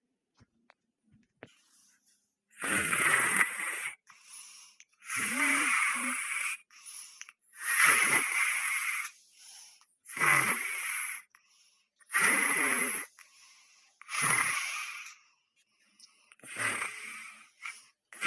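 Noisy, rasping snoring: about seven long snores roughly two seconds apart, starting about two and a half seconds in, the last one weaker.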